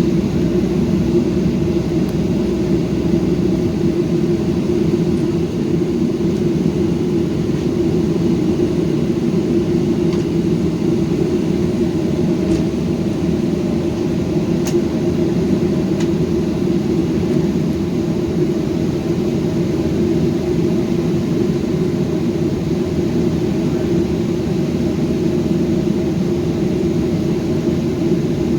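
Steady drone of an airliner's jet engines and air-conditioning heard from inside the passenger cabin, with a few faint clicks around the middle.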